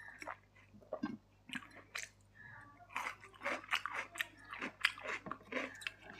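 Close-miked chewing and biting of a mutton thali meal: irregular wet mouth smacks and bites, quickening about halfway through.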